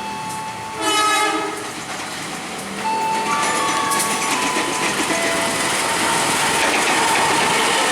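A train horn sounds one short blast about a second in, then a train runs through with a steady rush of wheel and rail noise that swells from about three seconds in.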